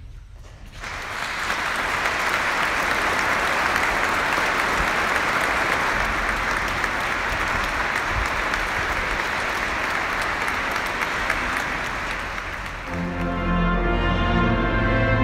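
A large church audience applauding: steady clapping that starts about a second in, welcoming the end of a sermon. About 13 seconds in the clapping gives way to music with long, held notes.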